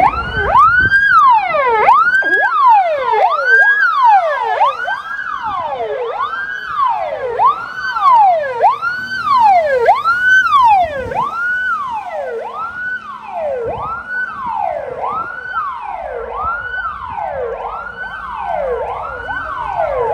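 Siren of a vintage VB (Czechoslovak police) car wailing in a repeating cycle, each cycle a quick rise and a slower fall in pitch, a little more than once a second. It grows gradually quieter as the car pulls away.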